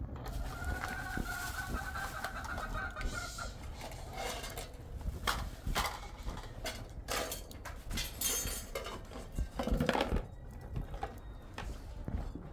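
A chicken gives one long, drawn-out call lasting about three seconds. It is followed by scattered clicks and knocks of plastic bowls and dishes being handled.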